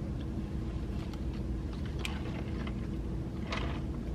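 Steady low hum, with a few faint soft clicks and rustles from eating about halfway through and near the end.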